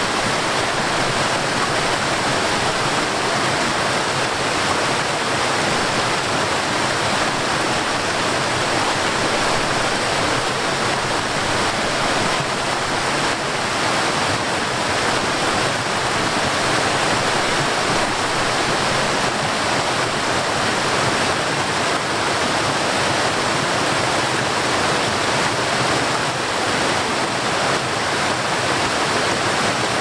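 Water rushing and splashing down a shallow cascade over rock ledges. It is a steady, unbroken rush that keeps an even level throughout.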